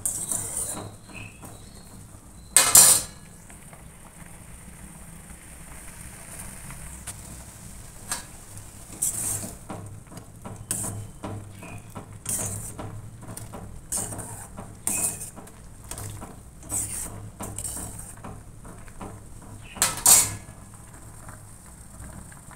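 A metal ladle clinking and scraping against a stainless steel saucepan as milk is stirred for kheer, in many short irregular strokes, with two louder clanks about three seconds in and near the end.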